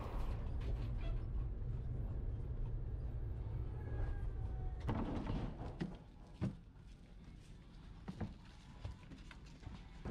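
A 1980s Soviet-era tram running along its track with a steady low rumble, heard from the driver's cab. About halfway through this gives way to quieter ambience at a stop, with a few separate knocks as passengers step up through the doorway.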